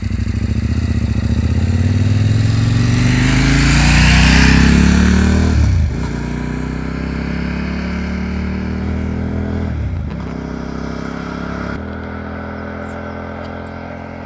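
Adventure motorcycle engines accelerating past on the road. The engine note climbs and is loudest about four seconds in, drops sharply at shifts about six and ten seconds in, then fades as the bike rides away.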